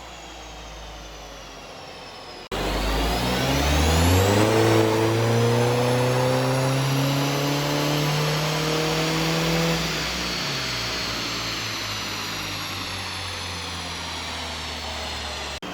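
Tuned Audi A3 2.0 TDI diesel with a GTB2060VKLR turbo and straight exhaust on a dyno. After a sudden cut about 2.5 s in, it pulls hard up through the revs with a rising turbo whistle for about seven seconds, then lifts off and the revs fall away. Before the cut a quieter spin-down with falling whine is heard.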